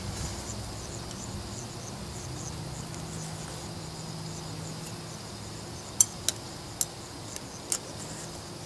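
Insects chirping steadily in a pulsing high trill, over a faint low hum. About six seconds in come four or five sharp clicks as the metal stake and pull hook are handled.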